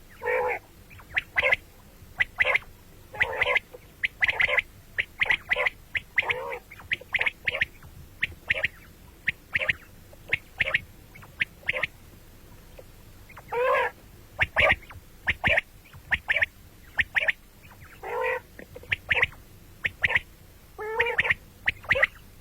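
Common quails calling over and over. Quick sharp notes, often in twos and threes, are mixed with longer, lower calls.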